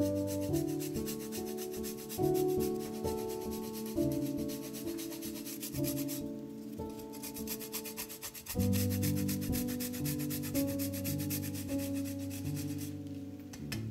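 A block of hard cheese being grated on a fine rasp grater: quick, even rasping strokes, with a short pause about halfway and a stop near the end. Soft background music plays underneath.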